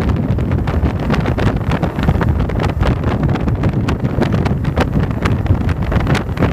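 Heavy wind buffeting on the microphone of a camera mounted on a moving Yamaha motorcycle. It is a dense low rumble broken by irregular crackles, with the motorcycle's engine and road noise running underneath.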